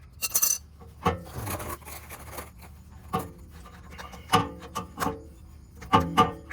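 Hand tools knocking and scraping against metal parts under a car while working a stuck starter loose: a series of sharp metallic clinks, several ringing briefly, with rasping scrapes between them.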